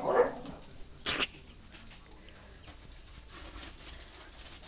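A steady high-pitched hiss, with one short sharp rustle about a second in.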